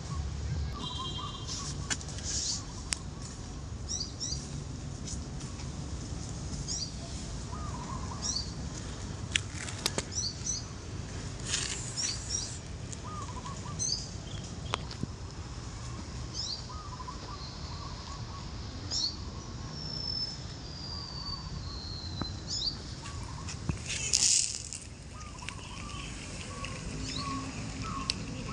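Small birds chirping repeatedly in short, quick high notes, with one longer falling whistle about two-thirds of the way through, over a steady low background hum and a few sharp clicks.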